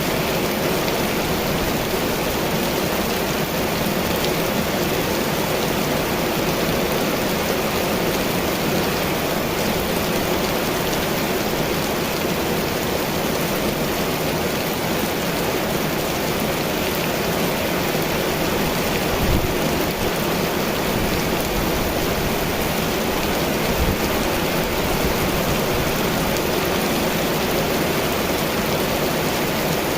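Heavy rain falling steadily, an even downpour hiss, with two brief low thumps about two-thirds of the way through.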